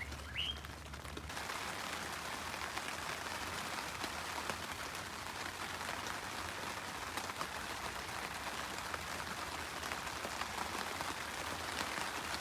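Rain falling steadily, a dense patter of drops that sets in abruptly about a second in and continues evenly. Just before it, two short rising chirps.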